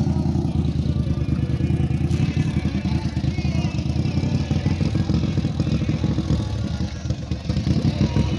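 Racing ride-on lawnmower engines running, loud and steady.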